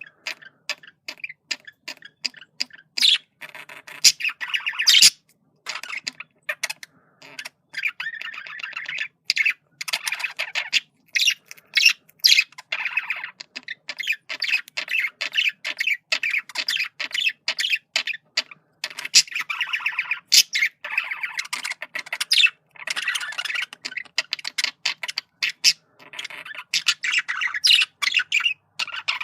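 Male budgerigar's warbling chatter: a continuous run of rapid clicks, chirps and warbles, broken by sharper, louder squawks and a few brief pauses.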